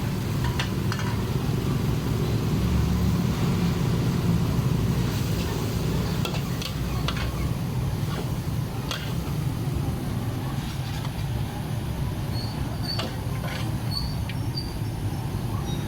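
Street food-stall ambience: a steady low rumble with scattered clinks and taps, and a few short high chirps near the end.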